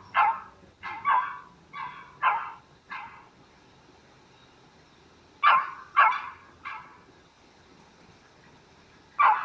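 Small dog barking in sharp yaps: five quick barks, a pause of a couple of seconds, three more, then one last bark near the end.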